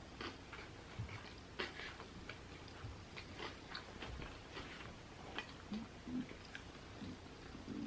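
Close-miked chewing of a sushi roll with soft-shell crab inside: faint, irregular small crunches and wet mouth clicks. There are a couple of short low hums about six seconds in.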